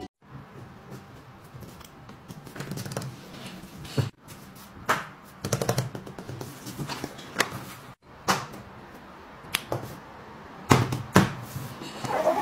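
Silicone pop-it fidget toys and other small fidgets being handled and set down on a table, giving irregular clicks and taps.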